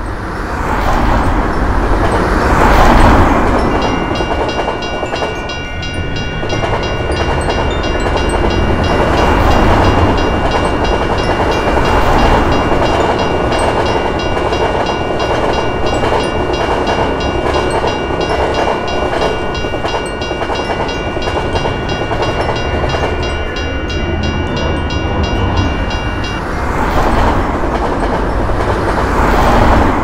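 Railroad crossing bell ringing with rapid, even strikes from about four seconds in until about four seconds before the end, over the steady rumble and clickety-clack of a passing electric train. Louder swells of passing road vehicles come near the start and the end, when the gates are up.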